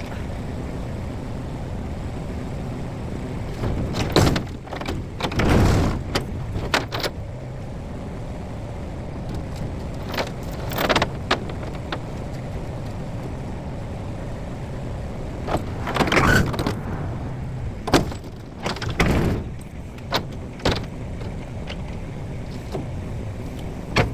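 Plasma cutter cutting through the welds of a steel flatbed in short bursts, each a loud hiss lasting about half a second to a second, over a steady machine drone.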